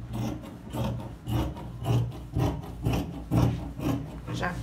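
Scissors cutting through folded cotton fabric on a table, a rasping snip about twice a second.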